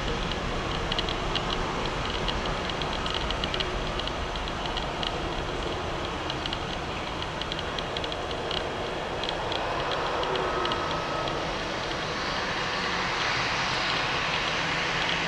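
Airbus A320neo jet engines at takeoff power, a steady rumble of engine noise heard from beside the runway that grows louder near the end as the airliner lifts off. A rapid, high chirping runs through the first two-thirds.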